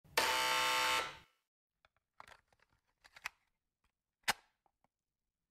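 A loud, harsh electric buzz with a sudden start and stop, lasting about a second, like a security door buzzer. A few faint clicks and knocks follow.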